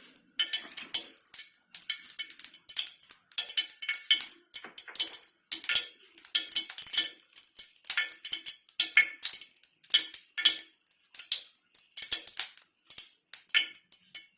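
Cooking oil heating in a pan for tempering, crackling and spitting in many short, irregular pops.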